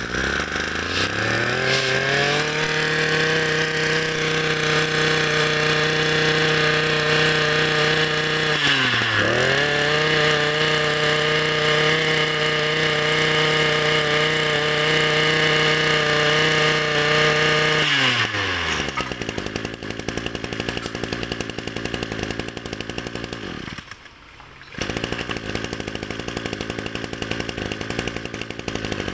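Ryobi 26 cc two-stroke brush cutter engine revved up to high speed and held there with one brief throttle dip, then let back down to a steady idle. Near the end it drops out for about a second and then picks up again.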